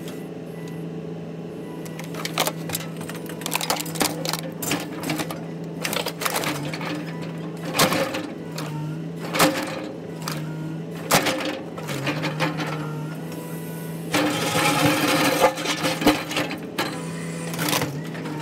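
Excavator diesel engine running steadily, its pitch dipping briefly several times under hydraulic load, as the bucket crushes a two-stage snowblower: repeated sharp cracks and crunches of its plastic and metal giving way. About three-quarters through comes a louder rush of scraping as the bucket grinds down into the gravel.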